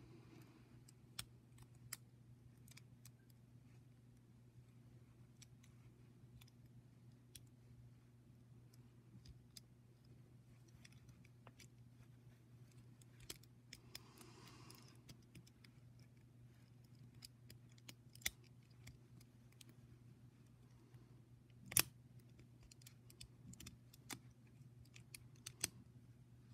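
Small plastic clicks and snaps of a Bakugan Howlkor Ultra toy being folded by hand into its ball form. The faint ticks are scattered, with one sharper snap a little over 20 seconds in, over a low steady hum.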